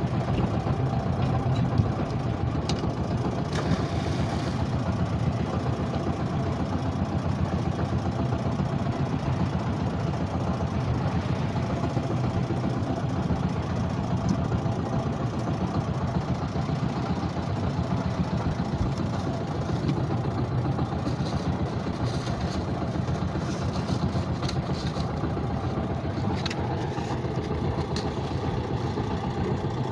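A small fishing boat's engine runs at a steady, unchanging speed, heard from on board as the boat moves along.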